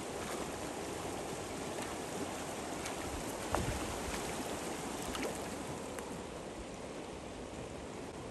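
Hooked kokanee salmon thrashing and splashing at the surface of a flowing river, over the steady rush of the current. The splashes come now and then, the sharpest about three and a half seconds in.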